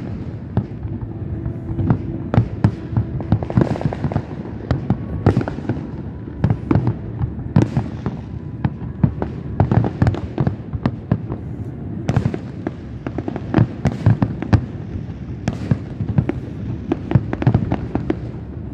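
Fireworks display: a dense, continuous barrage of bangs, several a second, overlapping one another.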